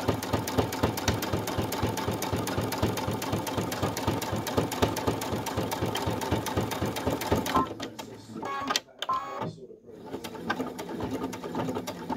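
Brother Innov-is V5 computerized sewing machine stitching through fleece at speed, a fast, even run of needle strokes. The stitching stops about two-thirds of the way in, leaving quieter, scattered sounds.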